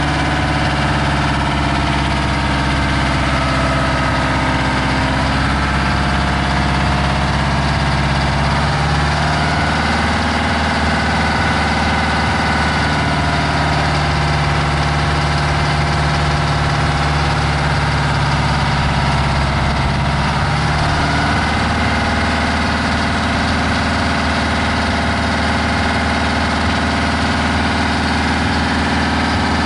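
White 9564 truck's Detroit Diesel engine running steadily at low speed while the truck manoeuvres slowly, its pitch shifting slightly about ten seconds in and again about twenty-one seconds in.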